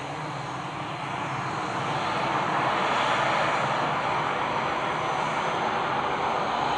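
Airbus A320's CFM56 jet engines running with a steady rushing noise that swells to its loudest about halfway through and then eases slightly.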